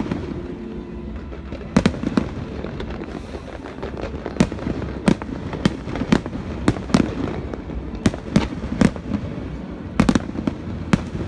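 Aerial fireworks shells bursting in an irregular series of sharp bangs, about fifteen in all, some coming in quick pairs, over a steady low background din.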